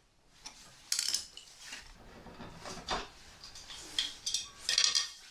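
Metal parts clinking and knocking against each other, a handful of separate sharp clicks spread through a few seconds.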